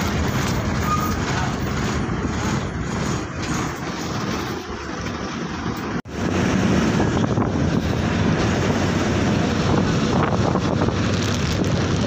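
Steady cabin noise inside a moving bus with open windows: the engine running, road rumble and wind through the windows. The sound cuts out for an instant about halfway, then carries on a little louder.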